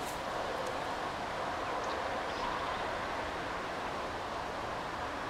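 Steady outdoor background hiss with a few faint, brief high chirps.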